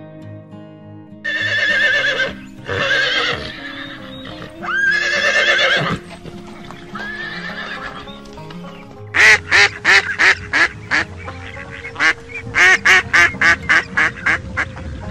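A horse whinnying three times, each a wavering call about a second long, over background music. From about nine seconds in, a duck quacks in a long, fast run of short calls.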